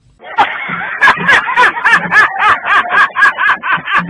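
High-pitched laughter: a quick, even run of about five short bursts a second, starting just after a brief silence.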